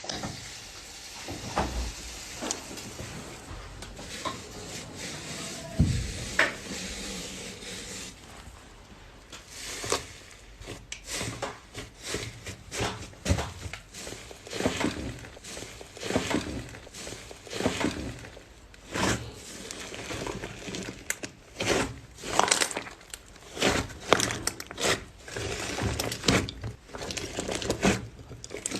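Slime being squeezed and kneaded by hand, making sticky squelches and small popping, crackling clicks. They are sparse at first, then come as a steadier run about one or two a second from about a third of the way in.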